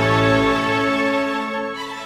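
Background trailer music of held chords with a string-like tone, gradually fading down over the second half.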